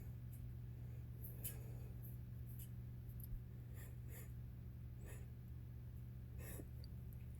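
Quiet room with a steady low hum and a few faint, short sniffs and breaths from a man recovering from pepper-induced sneezing.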